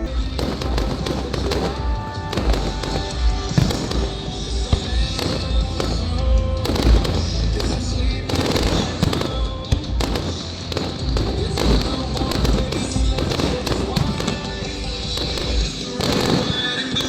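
Fireworks going off in a rapid, continuous run of cracks and pops, over background music with a heavy bass.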